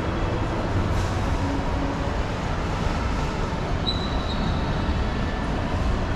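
Steady low rumbling din with no clear single source, and a brief high beep a little before four seconds in.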